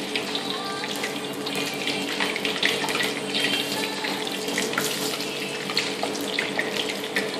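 Battered chicken pieces deep-frying in hot oil in a wok: a steady, dense sizzle with fine crackles and pops.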